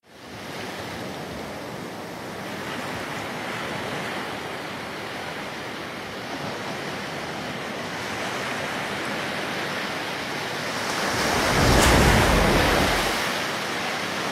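Sea waves and surf washing steadily, swelling into a louder, deeper rush about eleven seconds in before easing off.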